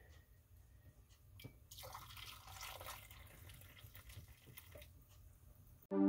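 Hot jelly being poured from a saucepan into a glass canning jar: a faint liquid trickle with a few small clicks. Synthesizer music cuts in at the very end.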